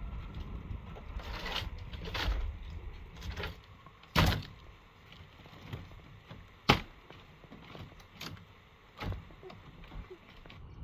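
Split-bamboo floor slats rustling, creaking and knocking as they are handled and pressed down into place. There is a louder crackle about four seconds in and a single sharp knock a couple of seconds later, with softer clacks before and after.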